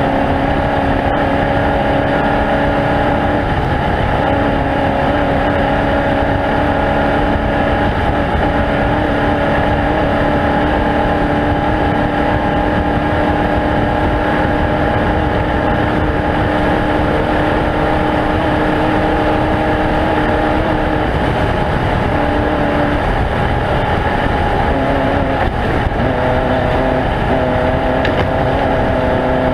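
An engine running steadily at an even speed, a constant mechanical drone whose pitch shifts slightly near the end.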